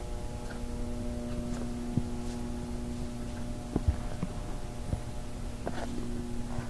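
Steady electrical hum at a fixed pitch with several overtones, over a low handling rumble, with a few faint knocks.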